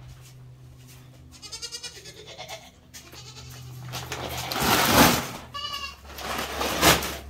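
Goats bleating a couple of times, short wavering calls. A paper feed sack is handled and emptied into a plastic bin, a loud rustling rush about five seconds in and again near the end, the loudest sound here.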